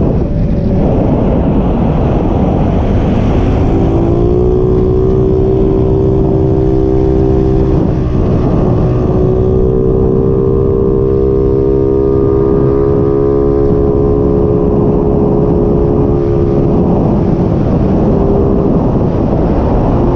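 Yamaha Mio Soulty scooter's single-cylinder four-stroke engine running at a steady cruise, with heavy wind rumble on the microphone. The engine's hum comes up clearly about four seconds in, holds nearly steady, and sinks back under the wind near the end.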